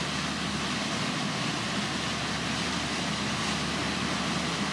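Boat's engine running steadily with a low hum, under a steady rush of wind and water.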